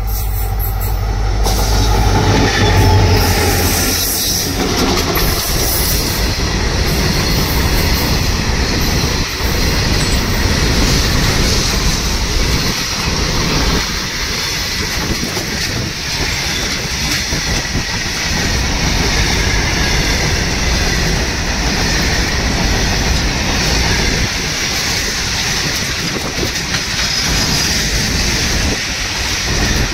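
Freight train wagons rolling past on the rails: a loud, steady rumble and rattle of wheels over the track, with a deeper low rumble in the first few seconds.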